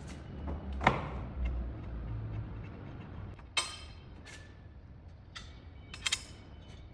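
Metal clinks and knocks from tools and parts during a blade change on a hydraulic paper cutter: a sharp knock about a second in, then two clinks that ring briefly, a few seconds apart. A low hum fades out about halfway through.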